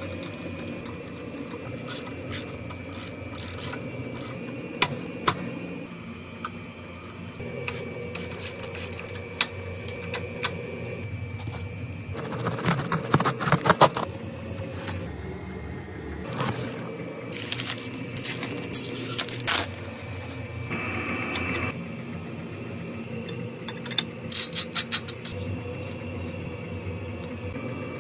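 Hand tools and metal motorcycle parts being handled and fitted: scattered clinks, scrapes and sharp knocks, with a dense run of them about halfway through.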